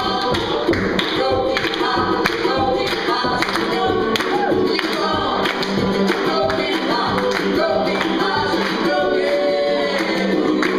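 Live folk music: voices singing over acoustic instruments, with a steady percussive beat of sharp strikes.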